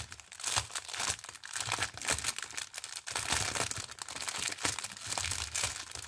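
Plastic bags of diamond-painting rhinestones crinkling and rustling continuously as they are handled, a steady crackle of many small rapid crackles.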